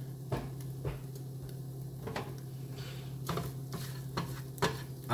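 A utensil stirring eggs in a pan, knocking and scraping against it in several separate clinks over a faint sizzle. A steady low hum runs underneath.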